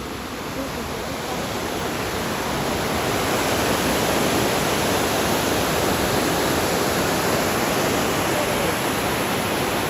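River waterfall: water pouring and splashing in a steady, even rush, growing louder over the first three seconds or so and then holding.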